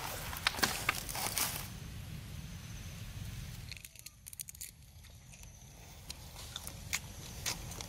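Crisp crackling and tearing of grilled snake being pulled apart by hand off a bamboo skewer, dense for the first second or two. About four seconds in it goes quieter, leaving scattered sharp clicks as the grilled snake is chewed.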